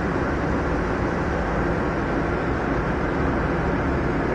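Diesel engine of a track maintenance motor car running steadily, heard from inside its cab.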